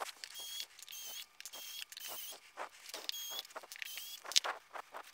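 Small hex screws squeaking as they are turned out of a Varla Eagle One electric scooter's deck plate with a hand hex driver. The sound is a run of short, high squeaks with small clicks between them.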